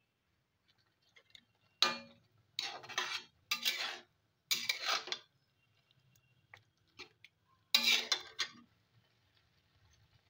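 A flat metal spatula scraping and clacking against a metal kadai as it stirs thick, wet pineapple chutney, in about five short strokes with pauses between them.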